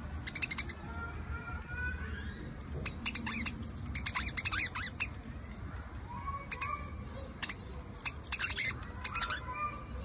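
Budgerigars chattering: quick bursts of short, sharp chirps and squawks with softer warbling between them.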